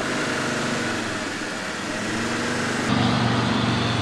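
Land Rover Defender 4x4's engine running hard under load, driving it through loose dirt with the wheels spinning. About three seconds in the engine sound cuts abruptly to a louder, deeper note as the vehicle climbs a steep dirt slope.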